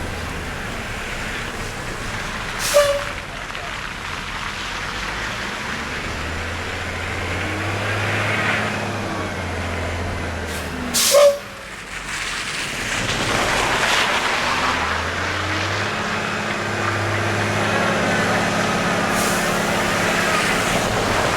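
Road traffic with heavy vehicle engines running steadily, and two short, loud hisses from air brakes about three seconds and eleven seconds in.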